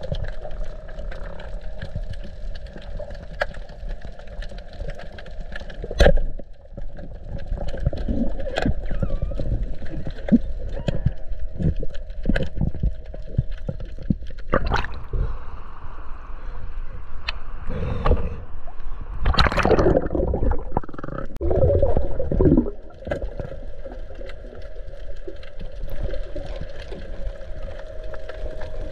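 Water sloshing and gurgling around a swimmer in the sea, with scattered clicks and knocks and a steady hum underneath. A loud rush of water comes about two-thirds of the way in.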